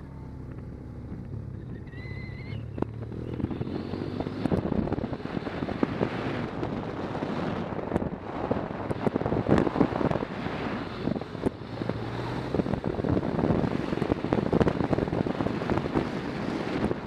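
Motorcycle engine running while riding, with gusty wind noise on the camera microphone that builds up a few seconds in and then dominates.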